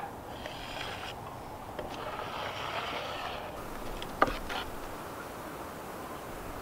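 Scraping of a plastic spreader working a glaze coat across a wooden countertop, in two stretches, with one sharp click about four seconds in.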